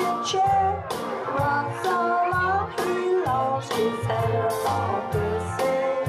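Music: a sung melody with instrumental backing and a regular beat.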